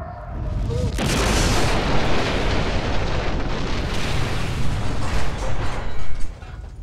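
Film sound effect of a satellite crashing into a house: a loud, rumbling blast that swells in about a second in, runs on for several seconds and cuts off suddenly near the end.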